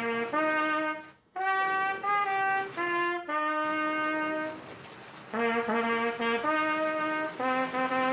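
Background music of a single trumpet playing a folk-song melody one note at a time, with a short breath pause about a second in and a long held note in the middle that fades before the tune picks up again.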